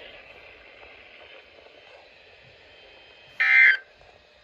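NOAA Weather Radio broadcast hissing faintly, then about three and a half seconds in a single short, loud buzzing squawk. This is the first of the SAME end-of-message data bursts that close the Required Weekly Test.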